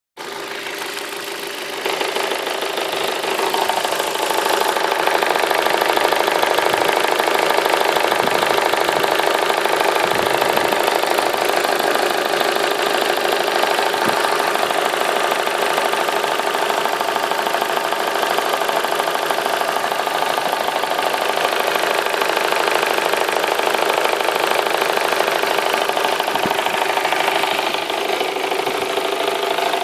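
Vauxhall Astra H 1.6 Ecotec petrol four-cylinder idling hot, with a loud diesel-like clatter at tickover whose cause the owner does not know. It gets louder after the first couple of seconds and stays steady.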